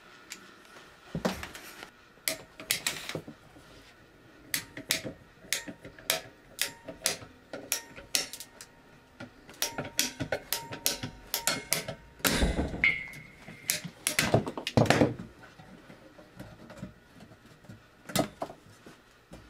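Ratcheting PVC pipe cutter clicking again and again as its handle is squeezed and released. Each squeeze advances the blade one tooth at a time through PVC pipe until the pipe is cut through. The clicks come irregularly, with a louder run of them about two-thirds of the way in.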